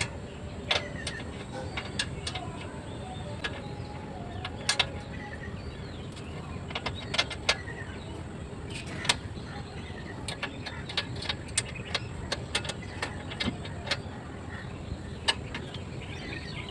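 Irregular sharp metal clicks and knocks of a spanner working the bicycle's rear axle nuts, tightening them to take up the chain's slack, over a steady low background noise.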